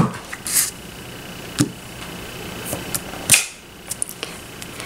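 Acrylic stamp block tapping on an ink pad and pressed onto cardstock on a cutting mat: a sharp tap at the start, a soft knock about a second and a half in, a louder knock about three seconds in, then a few faint ticks.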